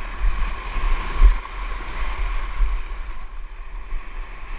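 Wind buffeting the microphone over sea water and waves around a kayak on the open ocean, with a strong gust about a second in.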